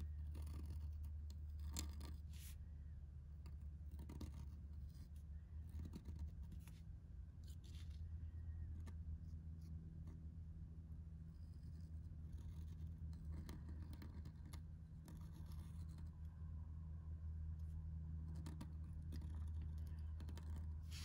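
Pointed steel nib scratching across paper in short, faint strokes as letters are written in ink, over a steady low hum.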